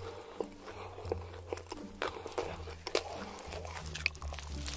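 Close-miked eating: crisp, crunchy bites and chewing of sauce-dipped fried chicken, heard as a scatter of sharp crackles.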